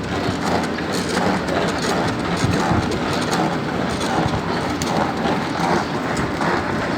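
Pedal-powered washing machine, driven by an exercise bike, running in reverse with the washing water churning in a steady rushing sound.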